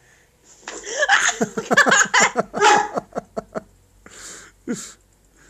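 A person laughing in a run of quick bursts, followed near the end by two short breathy puffs.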